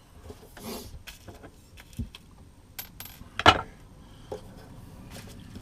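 Scattered light clicks and metallic clinks of small parts being handled on a workbench, with a sharper click about three and a half seconds in.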